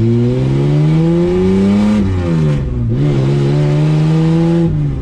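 Straight-piped Ford Falcon AU straight-six, heard from inside the cabin, revving up under hard acceleration. The pitch rises for about two seconds, drops at a gear change, rises again, and falls off near the end. This is a full-throttle test of fuel supply from a newly fitted Walbro 255 fuel pump, and the engine pulls without stuttering.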